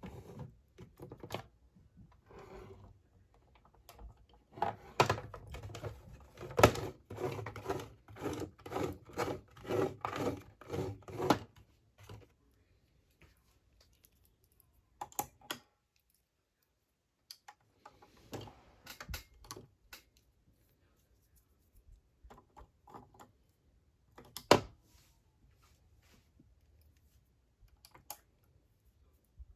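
Toy packaging being handled and opened, giving rapid clicks and crinkles at about three a second for several seconds, then a pause and scattered taps with one sharper click near the end.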